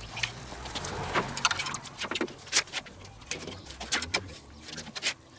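Stainless steel grill tongs clicking and clacking irregularly as rack ribs are lifted from a metal roasting tray and set down on a kettle grill's grate.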